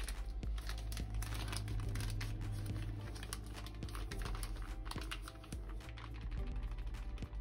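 Packet of dango flour crinkling in the hands as it is tipped and shaken out into a glass bowl: a dense, irregular run of small crackles.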